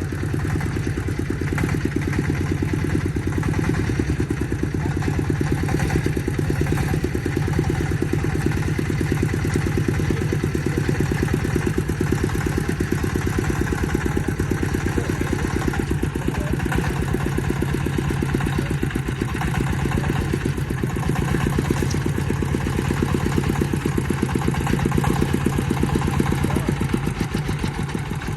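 Single-cylinder diesel engine of a công nông farm truck running steadily with an even chugging, easing off slightly near the end.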